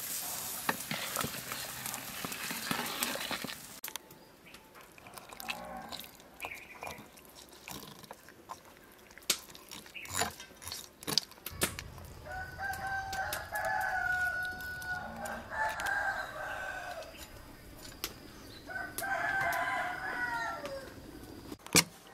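A rooster crowing three times, each crow about two seconds long, in the second half. Before that, a pot of broth hisses on the heat, then a spoon clinks and scrapes against a stainless-steel bowl as cooked fish is picked off the bones; a sharp clink comes near the end.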